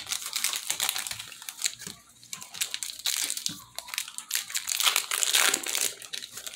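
Foil Pokémon booster pack wrapper crinkling as it is torn open by hand. The crinkling is loudest about five seconds in.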